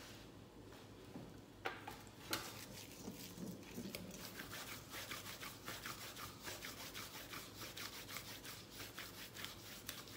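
Latex-gloved hands rolling and pressing minced-beef kofta mixture between the palms: faint rubbing with soft squelching taps that quicken into a fast run in the second half, and two sharper clicks about two seconds in.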